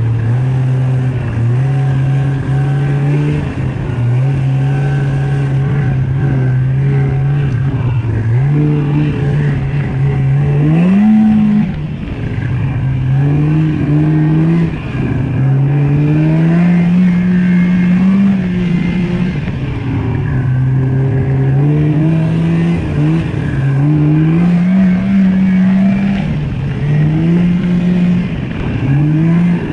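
Snowmobile engine running steadily, then its note rising and falling again and again as the throttle is worked, with a quick rise about ten seconds in.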